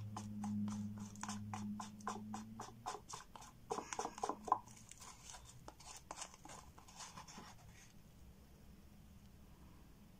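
Wooden stir stick scraping around inside a paper cup of epoxy resin in rapid strokes, several a second, gathering the last of the resin; the scraping stops about eight seconds in. A low hum sounds under the first few seconds.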